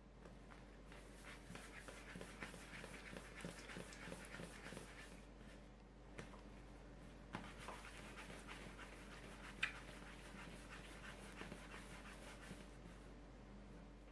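Hands rounding small balls of soft bread dough on a wooden board: faint, quick rubbing and scuffing in two stretches, with a single sharp tap about two thirds of the way through.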